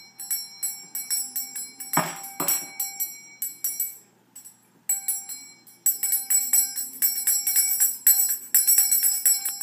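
A small Christmas bell ornament shaken by hand, jingling in fast rattling runs over a few steady ringing tones. There is a short lull about halfway through and a louder knock about two seconds in.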